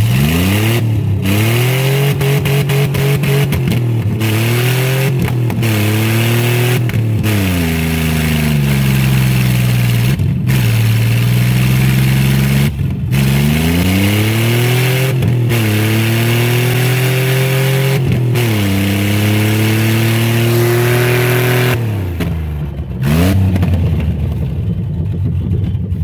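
A stripped GM pickup's engine is revved hard and held high, dropping back and climbing again several times. It is doing a burnout, with a rear wheel on a flat tire spinning in place until it smokes.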